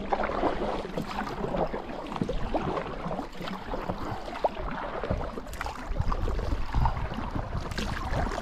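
Kayak paddle strokes: the blades dipping into and splashing through the river water, with dripping and water washing along the hull.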